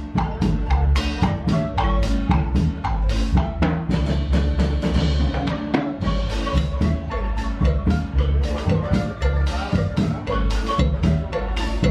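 Guatemalan marimba band playing live dance music: several players striking a large wooden marimba with mallets, over a drum kit keeping a steady beat.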